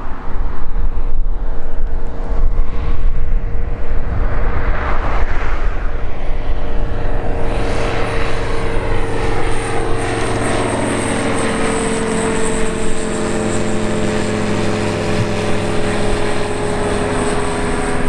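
Ikarus C42 ultralight's engine and propeller at climb power as it passes overhead after takeoff. The drone firms up into a steady tone with a high whine after a few seconds, then sinks slowly in pitch as the plane moves away. Wind rumbles on the microphone in the first few seconds.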